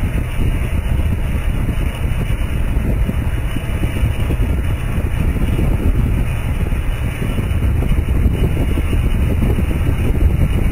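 Motorcycle cruising steadily at about 55 km/h: a constant low wind rumble on the microphone mixed with the bike's engine and road noise.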